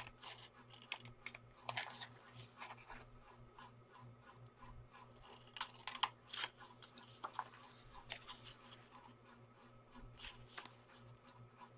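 Scissors snipping through printer paper, with the paper sheet rustling and crinkling in the hands: a faint, irregular run of small clicks and crackles.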